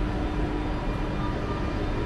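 SBB Re 460 electric locomotive rolling slowly into a station at the head of a passenger train: a steady low rumble with faint, even tones over it.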